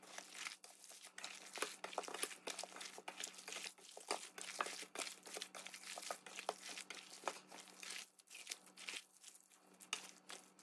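Gloved hand mixing ponytail radish (altari) with chili seasoning paste in a stainless steel bowl: a steady run of small, irregular wet crinkles and squishes as the radish and greens are tossed, over a faint steady hum.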